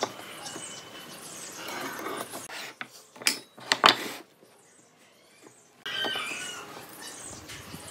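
Pine blocks and a steel square being handled on a wooden workbench, with a few sharp knocks a little past three seconds in as a block is set down on the bench top.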